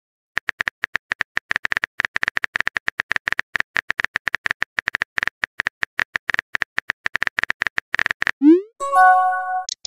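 Rapid run of short electronic clicks, about eight to ten a second, like a phone typing sound effect. Near the end come a quick rising swoosh and a short chime of several notes, a message-sent or notification tone.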